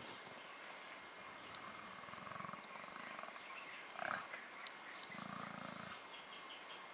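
Mountain gorillas giving low, pulsed rumbling grunts, once about two seconds in and again about five seconds in, with a short, louder, higher-pitched sound just after four seconds.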